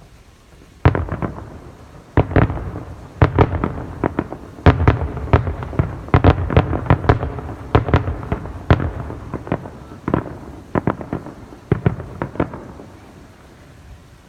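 Display fireworks bursting overhead in a rapid barrage of bangs. They start about a second in, come thickest in the middle and thin out toward the end.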